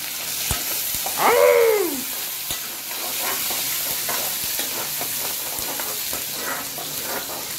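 Curry leaves and chopped onion sizzling in hot oil in a metal kadhai as the tempering for dal is made, stirred with a steel ladle that clicks against the pan now and then. About a second in, a brief voice-like tone rises and falls.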